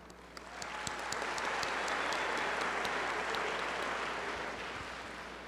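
Audience applauding, a dense patter of many hands clapping that builds about half a second in and slowly dies away near the end.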